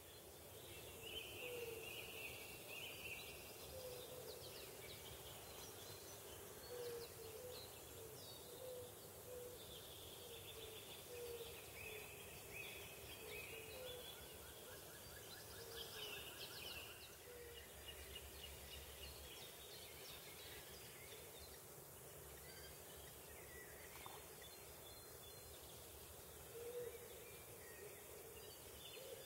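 Faint outdoor birdsong: small birds singing high chirping phrases, with short low hooting notes repeated at intervals of about a second through the first half and again near the end.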